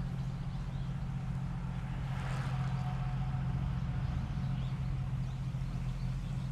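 Wind buffeting the action camera's microphone, a steady low rumble, with a brief rush of hiss about two seconds in.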